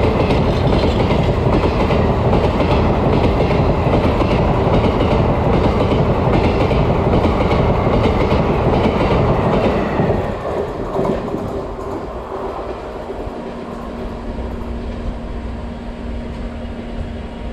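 Train coaches running past, wheels clicking over the rail joints in a steady clickety-clack. After about ten seconds it drops off to a quieter, steadier rumble, with a low steady hum coming in.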